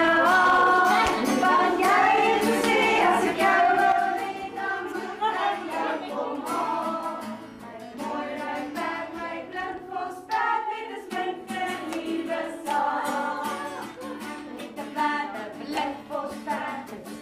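Two women singing a song together to a strummed acoustic guitar. The sound grows quieter about four seconds in.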